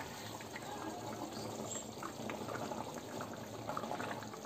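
Potato, pea and tomato curry gravy bubbling on the boil in a steel pan over a gas flame: a steady soft bubbling with small scattered pops.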